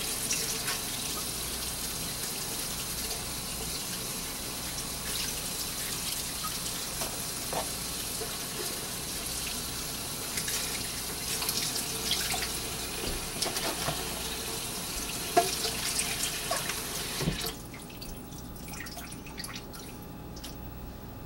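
Kitchen faucet running into a stainless-steel sink as salted young radish greens are rinsed under it by hand, with small splashes and drips. The tap is shut off about three-quarters of the way through, leaving only faint handling sounds.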